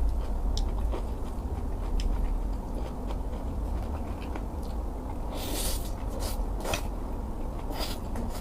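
Mouth chewing a bite of Korean bibimbap with kimchi, with small wet clicks and several short crisp crunching sounds in the second half.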